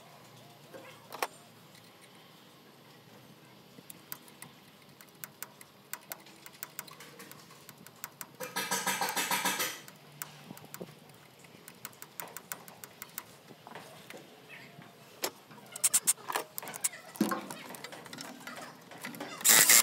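Metal tools clinking and clicking against engine parts by the belts and pulleys, with a short burst from a handheld power tool about eight seconds in and another near the end.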